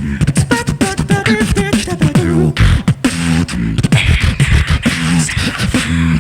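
Tag-team beatbox routine by two beatboxers: a dense, driving rhythm of vocal kicks, snares and clicks over a bass line, with short pitched vocal melody lines.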